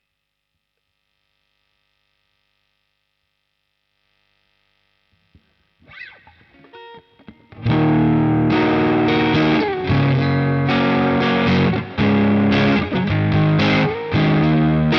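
Harley Benton ST-style electric guitar played through a Caline Pure Sky overdrive pedal, a Timmy clone. A few seconds of near silence and some faint string plucks come first. About halfway through, loud overdriven chords start, strummed in short phrases with brief breaks.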